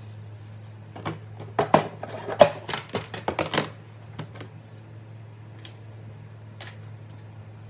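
Kitchen handling sounds: a quick run of sharp clicks and knocks starting about a second in and lasting a couple of seconds, then a few scattered taps, over a steady low hum.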